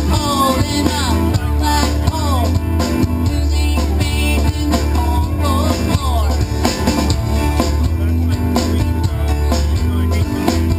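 A live rock band playing: guitars over bass guitar and a drum kit, with a lead line of notes bending up and down in the first few seconds.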